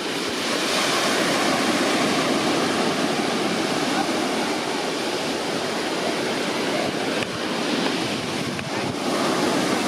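Steady rushing of water, even and unbroken, with no rhythm.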